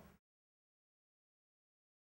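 Silence: the sound drops out entirely during a black title card, after the tail of the previous sentence fades in the first fraction of a second.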